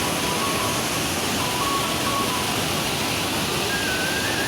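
Waterfall's steady rush of falling water, with faint thin tones coming and going over it and a slightly higher one near the end.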